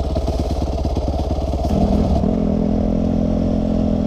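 Dirt bike engines: a single-cylinder dirt bike idling with quick, even firing pulses, then, about two seconds in, a dirt bike engine running at a steady pitch while riding along.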